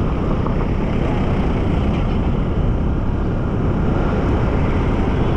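Riding noise from a moving motorcycle: a steady rush of wind, engine and road rumble, with no clear changes.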